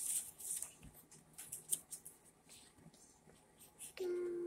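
Scissors snipping through paper in short, irregular cuts, with light paper rustling. A steady, held tone begins near the end.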